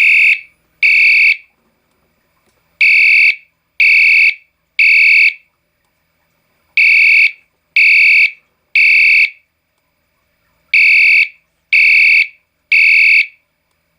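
Potter SH-1224 fire alarm horn set off by a pull station, sounding loud in the temporal-3 evacuation pattern: three half-second blasts, then a pause of about a second and a half, repeating.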